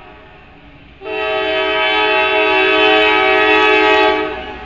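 CSX diesel locomotive's air horn sounding one long chord of several notes for about three seconds, starting about a second in, over the low steady noise of the passing freight train.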